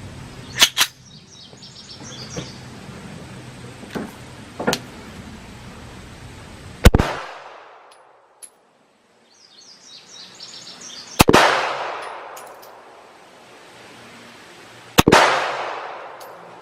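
Walther CCP 9mm pistol being fired: four loud shots several seconds apart, each followed by a long fading echo, with two fainter shots in between.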